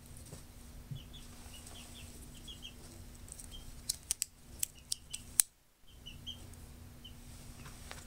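Sharp metal clicks and snaps of a Gerber Dime multi-tool being unfolded, its spring-loaded pliers opening out, bunched about four to five seconds in. Faint short high chirps come and go throughout.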